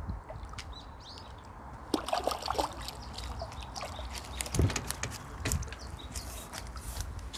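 A hooked crucian carp being netted: water splashes and trickles as the landing net scoops the fish and lifts it from the pond. From about two seconds in there is a run of small clicks and a couple of knocks.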